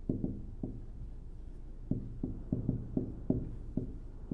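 Marker tapping and stroking on a whiteboard: about a dozen short knocks, each ringing briefly in the board, most of them coming between two and three and a half seconds in.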